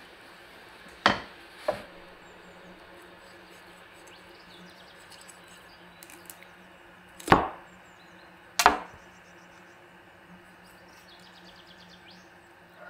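Cleaver chopping through a raw duck's legs on a wooden cutting board: four sharp chops, two close together about a second in and two more around seven to nine seconds in.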